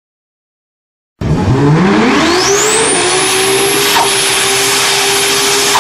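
A motor starts up about a second in, its whine rising over a second and a half and then holding steady and loud at high speed.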